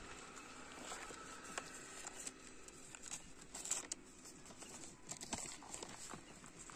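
A paper slip being unfolded and handled: faint crinkling with scattered short rustles, a few louder ones in the middle.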